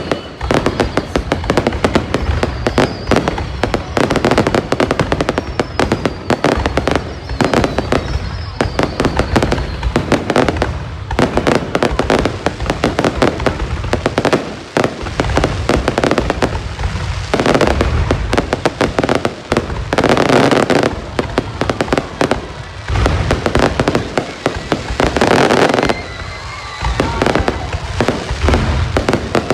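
Fireworks display going off in a dense, continuous barrage of bangs and crackling, with a few thin whistles between the bursts.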